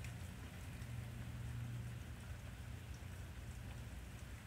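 Steady rain falling, with scattered drops ticking, over a steady low rumble.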